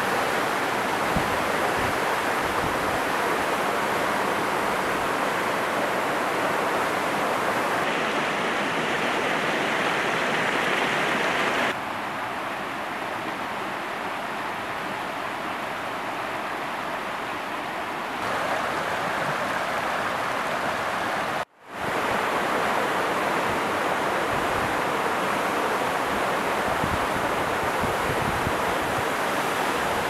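Waterfall roaring: a steady, even rush of falling water. In a quieter stretch near the middle, a rocky stream is heard running over stones, and the sound drops out for an instant about 21 seconds in.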